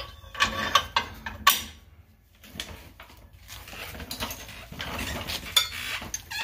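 Metal tools and hardware clinking as they are handled: a few sharp clinks with a short ring in the first second and a half, then quieter handling and another clink near the end.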